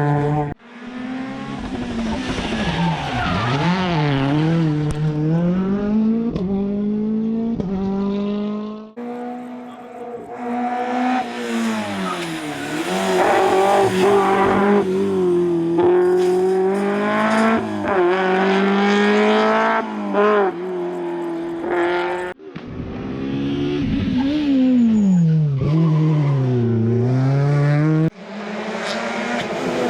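Rally cars' engines revving hard, pitch climbing and dropping again and again through gear changes and braking for corners, with some tyre squeal. It is several separate passes, each cutting off abruptly into the next.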